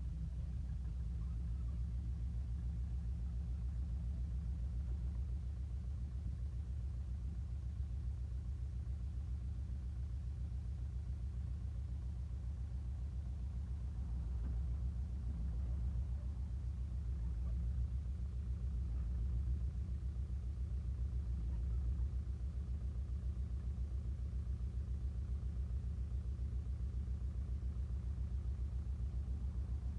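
International Harvester TD9 crawler's four-cylinder diesel engine running steadily with a low, pulsing rumble, swelling a little louder a few times around the middle.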